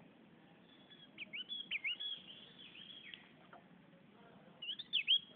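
Javan grey-throated white-eye (opior jawa) singing: a quick run of high whistled notes that swoop down and hook back up, starting about a second in, then a shorter phrase near the end.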